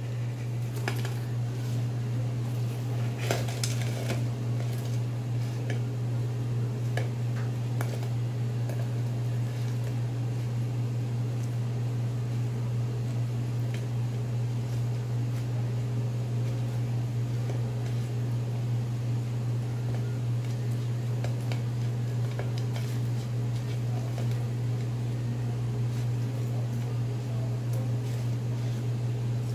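Fried chicken wings, cheese sticks and fries tipped from a wire-mesh strainer onto a plate, with light taps and clatter mostly in the first several seconds, over a steady low machine hum.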